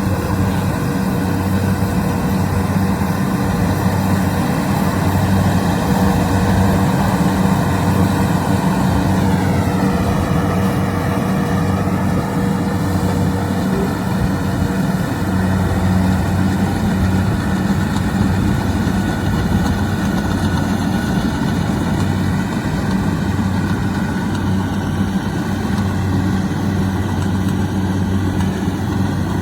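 Kubota DC-70 Plus rice combine harvester's diesel engine and machinery running steadily at working speed, its pitch dropping slightly about nine seconds in.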